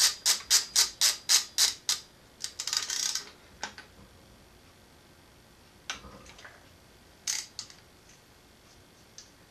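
Ratchet wrench clicking at about four clicks a second while tightening idler pulley bolts on a Subaru engine block. The clicking stops about two seconds in and is followed by a brief quick rattle, then a few scattered metal clinks.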